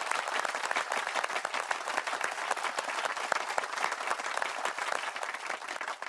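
Applause from a crowd: a dense, even patter of many hands clapping, easing slightly near the end.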